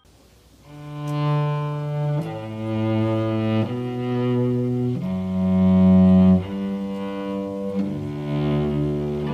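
Background music: a slow melody of long held notes, each changing to the next about every second and a half, starting about half a second in.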